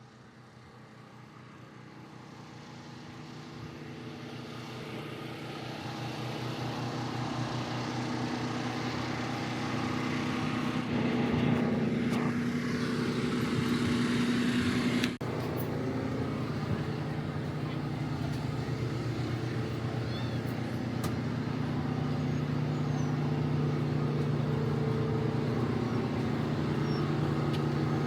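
Jeep engines running steadily, fading in over the first several seconds, with an abrupt cut about fifteen seconds in before the engine sound carries on.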